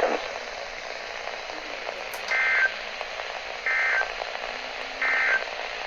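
NOAA Weather Radio SAME end-of-message data bursts: three identical short two-tone warbles, each about a third of a second long and about 1.4 s apart, over steady receiver hiss. They mark the end of the weekly test alert.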